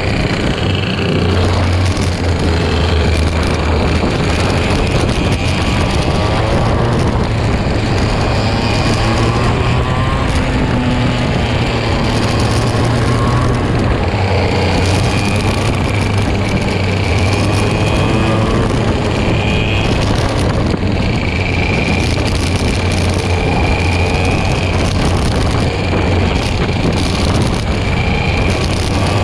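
Two-stroke kart engines racing in a close pack, recorded onboard. A constant high buzz whose pitch rises and falls again and again as the drivers accelerate and lift, over a steady low rumble.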